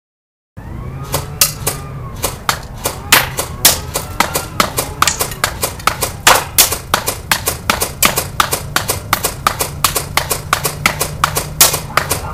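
Rapid sharp snaps, about six a second and uneven in strength, starting abruptly after a moment of silence: a CYMA AK74 airsoft electric rifle firing fast semi-automatic shots, with music underneath.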